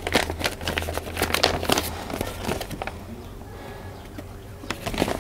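Sheets of white paper being handled and folded, rustling and crinkling in quick strokes through the first three seconds and again near the end.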